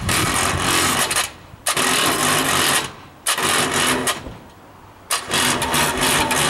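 Electric hoist on a gantry crane running in four short bursts, stopping and starting each time, as it lowers a boat onto a dolly.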